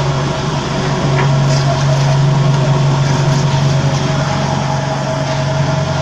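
Electric vibrating table for concrete paver moulds running with a steady, loud hum, shaking the plastic moulds of wet concrete on its steel deck to compact the concrete.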